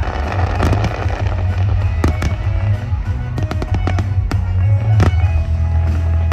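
Fireworks going off: a run of sharp bangs and crackles every second or so over a steady low rumble, with music playing along.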